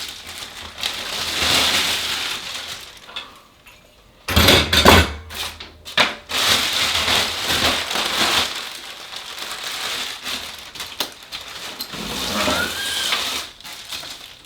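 Packaging rustling and crinkling as the metal stand parts of a backdrop kit are unpacked by hand, with a loud knock of the parts about four seconds in and a few lighter knocks soon after.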